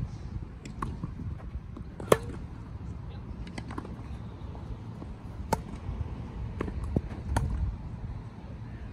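Tennis rally: a ball struck back and forth by rackets, with several sharp pops a second or two apart, the loudest about two seconds in. A steady low rumble runs underneath.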